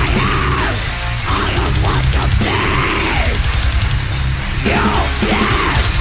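Death-thrash/deathcore metal: heavily distorted guitars with a dense, steady low end. About three times, a high sound bends up and falls back.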